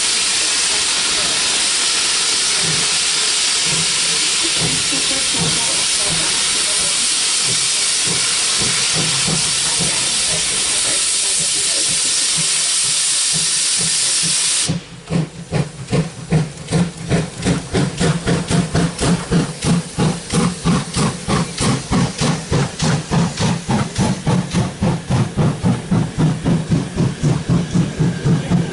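Class 52 steam locomotive starting a train: a loud steady hiss of steam from the open cylinder drain cocks that cuts off suddenly about fifteen seconds in, then rhythmic exhaust chuffs that quicken as it gathers speed.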